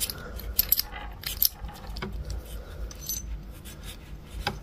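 Small steel parts of a Tomos moped gearbox selector shaft clinking as they are handled and fitted together by hand: a string of light metallic clicks at irregular intervals.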